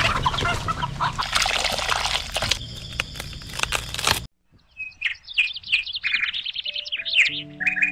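Farmyard chickens and chicks making a busy, noisy clatter of calls, cut off suddenly after about four seconds. After a short gap, small birds chirp in quick runs, and gentle music comes in near the end.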